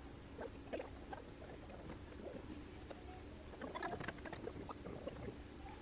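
Badusha dough rounds deep-frying in oil in a kadai: faint bubbling with irregular small crackles and pops, busiest about four seconds in.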